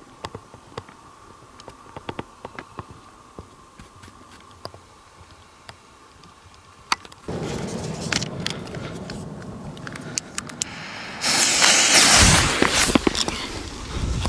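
Scattered clicks of handling on stones, then about seven seconds in a torch lighter hisses on and the fuse of a handmade cipolla tric trac firecracker sputters. About eleven seconds in comes the sudden loud blast of its 300 g flash-powder charge, with a deep low burst, the noise lasting about two seconds.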